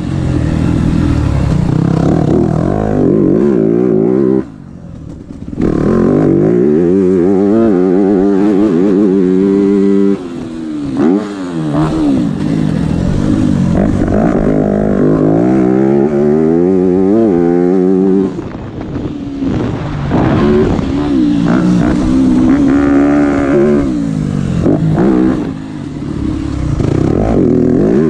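Dirt bike engine revving hard, its pitch climbing again and again through the gears and dropping back off the throttle, with a few short lulls.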